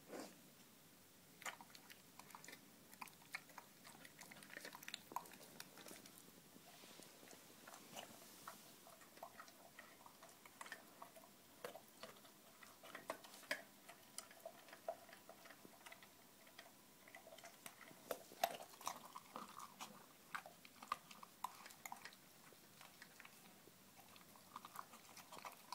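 Bull terrier chewing raw food: irregular crunches and sharp bites, in uneven clusters.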